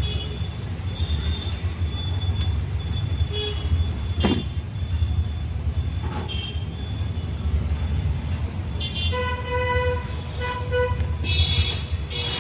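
Steady low rumble of road traffic with vehicle horns: a car horn honks twice about nine and ten and a half seconds in, and a higher-pitched horn sounds near the end.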